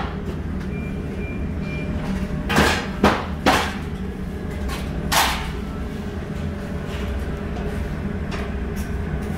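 Restaurant kitchen hum with metal clatter as stainless-steel steam-table pans are handled: three clanks close together about two and a half seconds in, and another a couple of seconds later.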